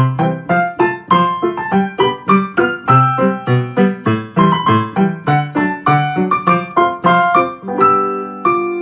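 Background piano music with quick, evenly struck notes over a bass line.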